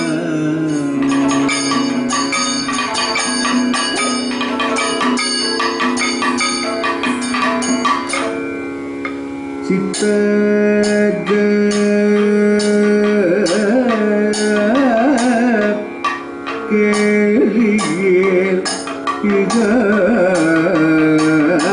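Live Kathakali music: a male singer's melodic line over a steady drone, with drum strokes and metallic percussion strikes throughout. The voice bends and wavers more in the second half.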